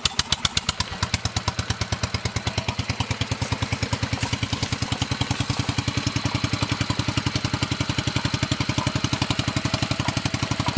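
Petter single-cylinder petrol engine running with a rapid, even beat, driving a Southern Cross Billabong crosshead water pump by a flat belt.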